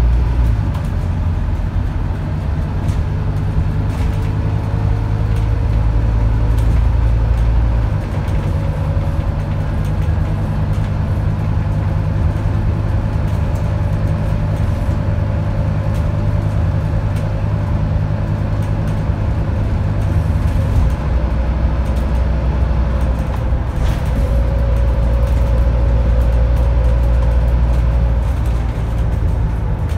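The five-cylinder Scania DC9 diesel engine of a Scania N230UD double-decker bus drones steadily while it drives, heard from inside the passenger saloon. The drone changes pitch about eight seconds in and again about twenty-one seconds in, with a faint whine running over it.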